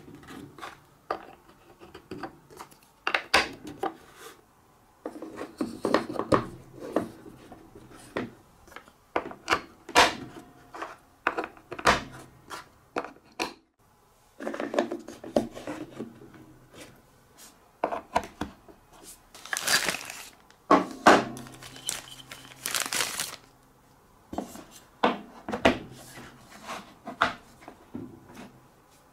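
Wooden marble-run track pieces and plastic building blocks being handled and fitted together: a string of light wooden clicks and knocks, with a few short stretches of rubbing and sliding.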